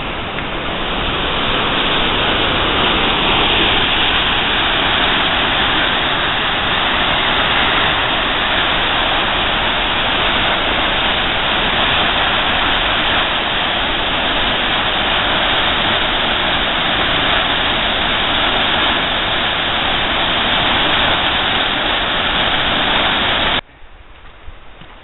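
Devil's Kettle Falls on the Brule River running in high water: a loud, steady rush of white water that builds over the first couple of seconds and cuts off suddenly near the end.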